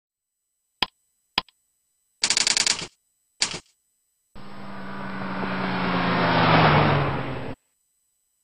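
Edited intro sound effects: two sharp clicks, a short rapid rattle and another click, then a pitched sound that swells for about three seconds and cuts off suddenly, with dead silence between the pieces.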